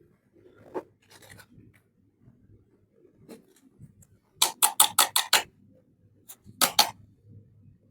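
Small plastic toy pieces and packaging being handled: a soft knock and rustle, then a quick run of about seven sharp scraping clicks about halfway through, and two more near the end.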